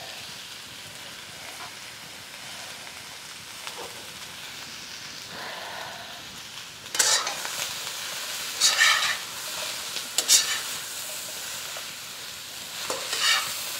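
Vegetables sizzling steadily in a carbon steel wok, with a metal spatula stirring and tossing them in a handful of short scraping strokes from about seven seconds in.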